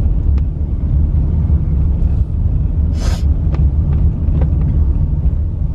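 Car on the move: steady low road and engine rumble, with a few light clicks and a short hiss about three seconds in.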